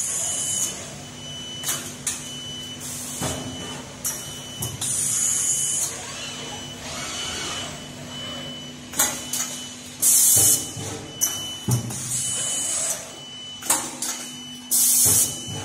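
Robotic projection and stud welding cell at work: repeated sharp hisses of air venting from pneumatic cylinders, with clacks and knocks of clamps and welding heads closing, a low hum that comes and goes, and a thin high tone switching on and off.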